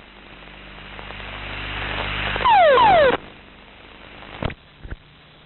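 Ejection from a T-6 trainer: a rush of air swelling steadily for a couple of seconds, then a loud blast with several falling whistles that cuts off abruptly. Two short knocks follow near the end.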